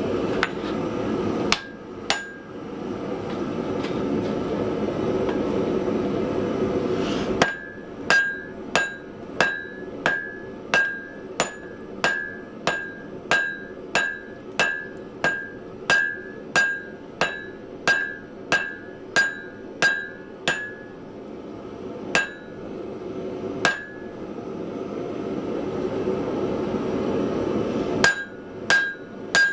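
Hand hammer striking steel on an anvil in a steady run of about one and a half blows a second, each with a bright ring, while a bar is forged down to about 1 inch by 3/8 inch. Before and between the runs of blows there is a steady rushing noise.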